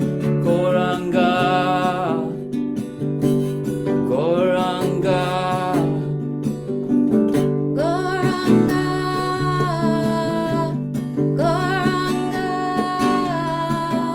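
Kirtan music: a voice sings long, held melodic phrases of the chant, about four of them, over guitar and sustained low notes.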